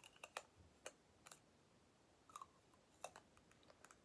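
Small plastic makeup packaging being handled: a scattering of faint, sharp, irregular clicks and taps, about a dozen, as a case or cap is opened, turned and set against the fingers.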